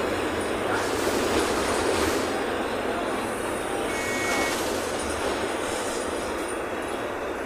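Steady cabin noise of a moving city bus, heard from the front of the bus: engine and road noise. A brief high tone sounds about four seconds in.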